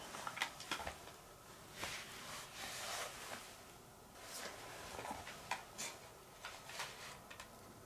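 Faint handling noise: scattered light clicks and rustles as a plastic cassette tape in its case is handled.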